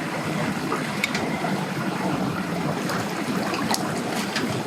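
Choppy, wind-driven lake water steadily splashing and lapping, with a few light knocks.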